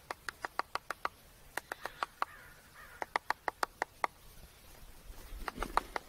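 A nuthatch pecking at the wood in a hole in a dead tree: quick, sharp taps in runs of five or six, about five a second, with short pauses between the runs. A low rumble comes in near the end.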